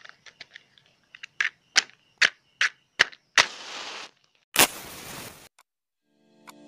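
A run of sharp clicks, about two or three a second, then two short hissing scrapes, the second lasting about a second.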